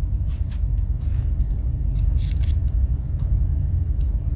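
Steady low rumble with a few faint clicks and light scrapes, from the small parts of a Swiss Army knife being handled.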